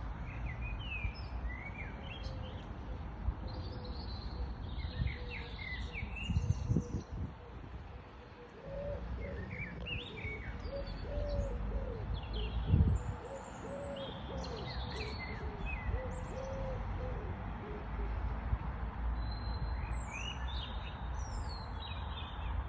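Several wild birds chirping and singing in short high phrases, with a run of low, soft calls repeated many times through the middle. A steady low rumble lies underneath, and a dull thump about halfway through is the loudest moment.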